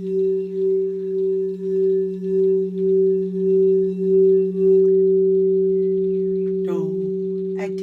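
A steady humming drone of two low tones an octave apart. The upper tone pulses about twice a second, then holds steady from about five seconds in. A singing voice comes in briefly near the end.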